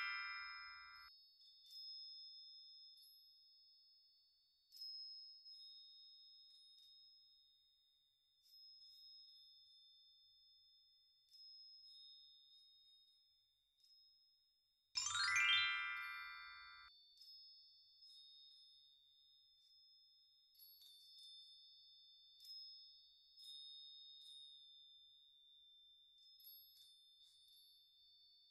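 Quiet background music of high, steady chiming tones with light ticks, and about halfway through a bright rising chime sweep, a sparkle sound effect.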